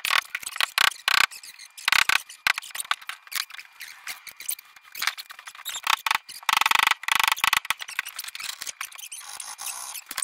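Double-bit axe head being driven down onto its hickory handle with many irregular sharp strikes. A few of the strikes ring briefly.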